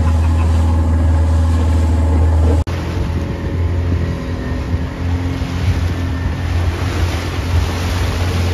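Boat motor running with a steady low hum. A little over two seconds in, the sound cuts abruptly to a rougher, uneven engine rumble under a rushing noise of water and wind as the boat moves over choppy sea.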